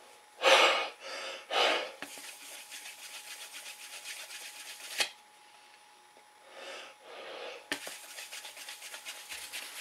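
Handling of an audio CD and its case: two short loud scrapes, then steady rubbing broken by two sharp clicks.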